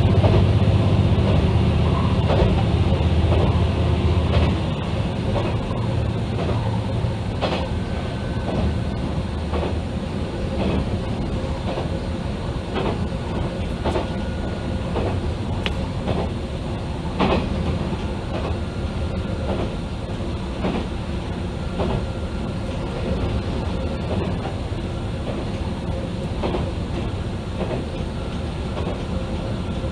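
Ibara Railway diesel railcar running, heard from inside the front car. A strong engine hum eases off about four seconds in, leaving a steady rolling noise with occasional wheel clacks.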